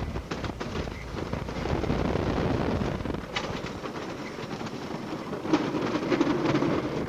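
Wooden roller coaster train rattling and roaring along its wooden track at speed, with wind buffeting the microphone. Sharp clacks stand out about three and a half and five and a half seconds in.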